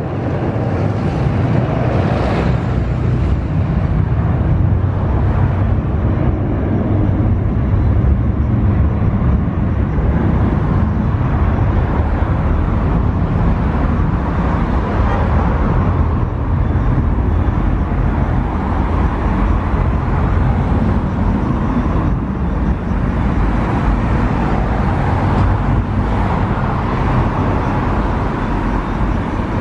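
An Airbus A330's twin jet engines running at taxi power: a loud, steady rumble and rush that holds evenly as the airliner taxis away.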